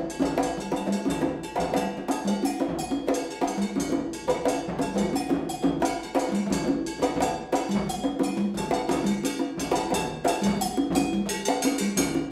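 Multi-part percussion ensemble playing dense, interlocking drum rhythms generated in real time by the Kinetic Engine V3 multi-agent, evolutionary rhythm software. The strikes overlap continuously, with low drum tones recurring throughout.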